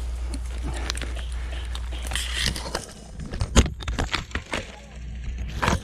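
Twigs and dry brush snapping and crackling as someone pushes through dense undergrowth, a run of sharp, irregular cracks from about three seconds in, over a steady low rumble in the first half.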